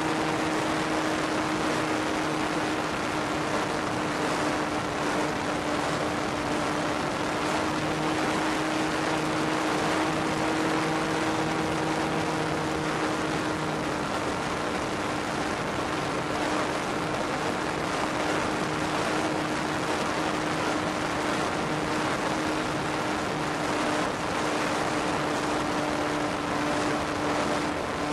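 Onboard sound of a radio-controlled model Ju-87B Stuka flying at full throttle: its motor and propeller hold one steady tone, under a constant rush of wind over the airframe.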